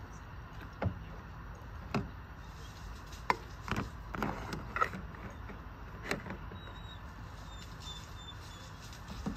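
Scattered clinks, taps and light knocks of camp cooking gear being handled: a spatula and skillet on a mini propane stove, and a plastic food container being moved and opened. A steady low background noise runs underneath.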